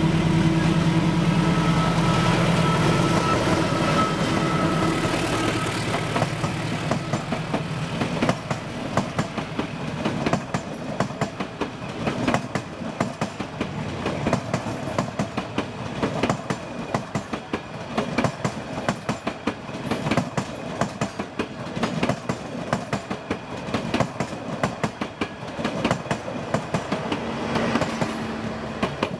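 A diesel-hauled express passenger train passing. The locomotive's engine hum fades over the first six seconds or so into the steady clickety-clack of the coaches' wheels over rail joints. A steady hum returns briefly near the end as the last car passes.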